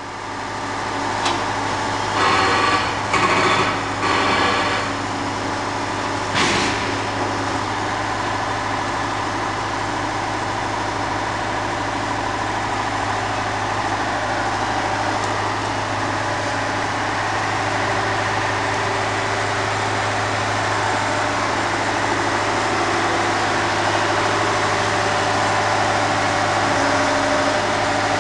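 An engine running steadily at idle with a constant low hum. There are a few short clanks in the first several seconds and one sharper knock about six seconds in.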